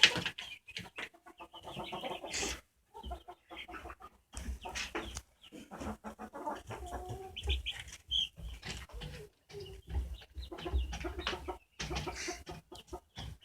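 Chickens clucking: many short calls, one after another with brief gaps between them.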